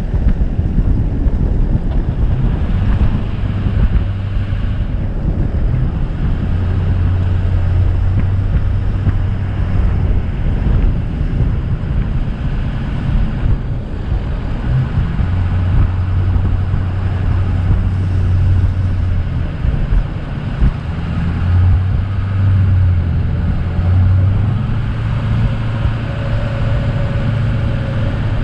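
A vehicle's engine running while driving, a low steady hum that swells and fades and shifts slightly in pitch, under constant wind and road rush.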